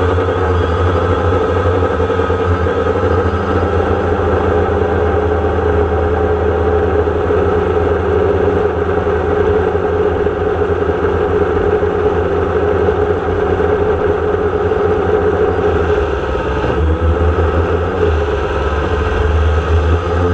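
DJI Phantom quadcopter's motors and propellers buzzing steadily in flight, as picked up by its onboard camera, over a strong low rumble; the sound dips briefly about sixteen seconds in.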